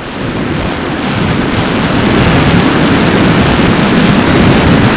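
Wind rushing over the onboard camera microphone of a SkyHunter FPV plane in flight: a loud, even rush that builds over the first two seconds, then holds steady.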